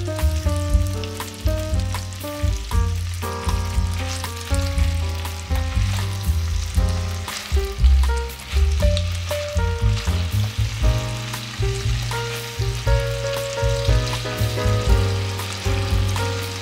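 Chicken and vegetable skewers sizzling and crackling in hot oil in a frying pan, over background music with a steady bass line and a melody.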